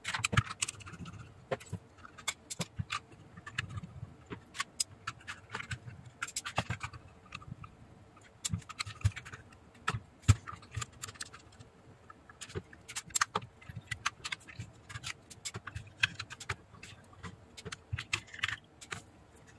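Irregular clicks, knocks and light scrapes of a metal power-supply case and circuit board being handled and taken apart with a screwdriver.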